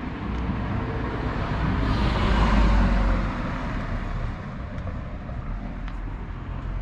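A car passing along the street: its engine and tyre noise swells to a peak about two and a half seconds in, then fades away over a steady low rumble.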